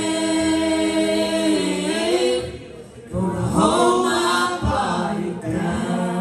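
Church praise team singing together, a man's and a woman's voices on microphones. One long held chord, a short break about two and a half seconds in, then a phrase that rises and is held.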